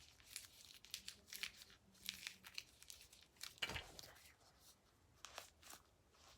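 Faint craft-handling noises: a run of short crinkling and tearing sounds as pieces are stuck onto a glove, the loudest a little past halfway through.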